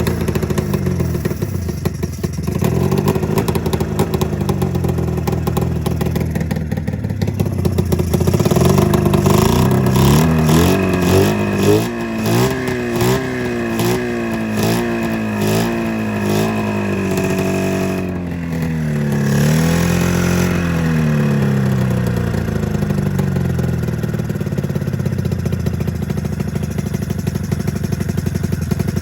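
Two-cylinder two-stroke snowmobile engine running and being revved up and down several times, with quick throttle blips in the middle, then settling to a steady idle. It is misfiring and sounds like it is running on one cylinder, which the owner puts down to a fuel delivery fault.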